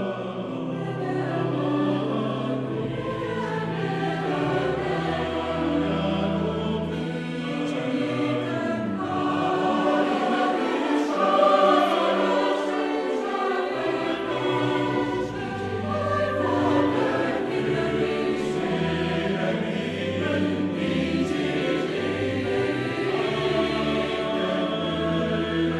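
Mixed choir singing a hymn in several parts, men's and women's voices together, with sustained low notes underneath.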